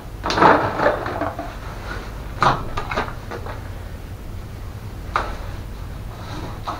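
Clattering knocks of hard scooter parts being handled and set down. There is a loud burst of clatter near the start, another around two and a half seconds in, and a single sharp knock about five seconds in, over a steady low hum.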